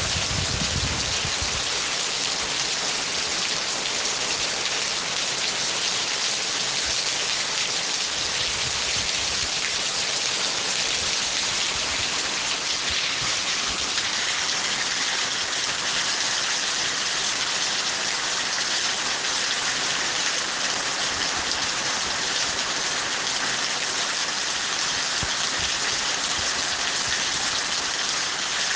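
Steady, heavy rain falling and pattering on surfaces, with a brief low rumble near the start.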